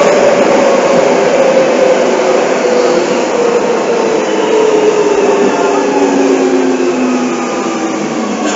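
Seibu 6000 series electric train running in a subway tunnel, heard from inside the car: a steady rumble of wheels and running gear with a motor whine that slowly falls in pitch as the train slows.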